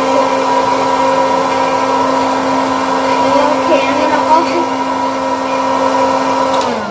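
Electric hot-air popcorn machine running loud, its fan motor blowing with a steady hum. It is switched off near the end, and the hum falls in pitch as the motor winds down.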